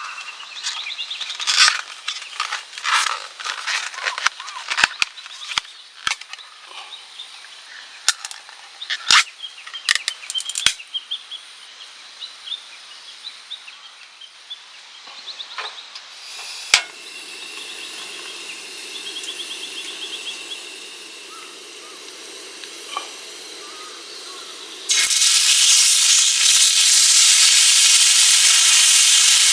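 Camp cooking gear clinking and knocking, with birds calling. A single sharp click about 17 s in is followed by a steady hiss. Near the end a hot pan starts sizzling loudly and suddenly, with food frying.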